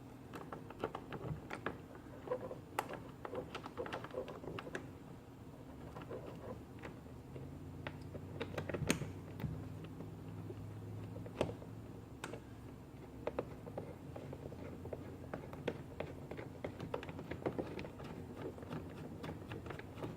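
Irregular small clicks and taps of a hand tool and screws as the two mounting screws of a new motorcycle fuel petcock are started and tightened into the gas tank.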